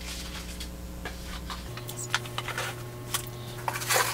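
Small clicks and taps of items being handled on a tabletop, with a short louder rustle near the end.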